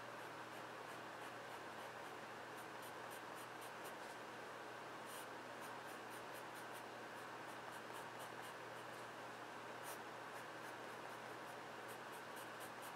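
Graphite pencil scratching on drawing paper in quick runs of short slanted strokes, each stroke a brief light scratch.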